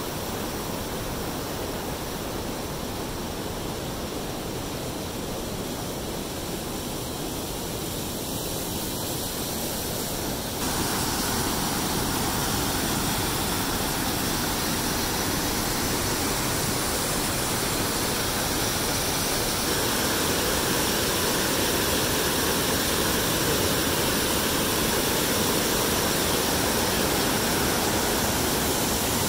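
Rushing whitewater of a rocky mountain creek and waterfall, a steady noise of churning water. It gets louder in two steps, about 11 and 20 seconds in.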